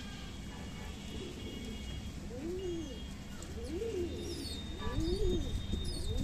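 Domestic pigeons cooing: a run of low coos, each rising and falling, about one a second from roughly two seconds in. Faint high chirps sound in the second half.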